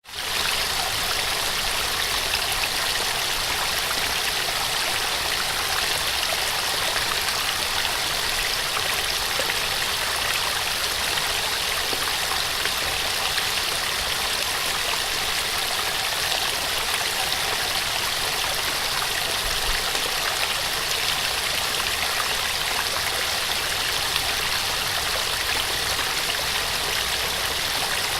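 Small waterfall: water splashing and rushing steadily, with an even hiss weighted to the middle and upper range.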